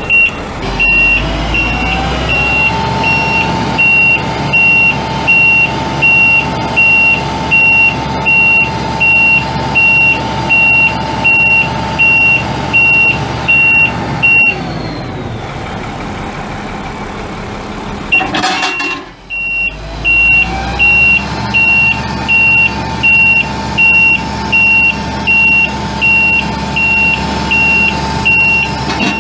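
Heavy truck's International DT466E inline-six turbo diesel running while a high-pitched warning alarm beeps about once a second. A whine climbs in pitch and holds steady, falls away about halfway through, and climbs and holds again after a brief dropout.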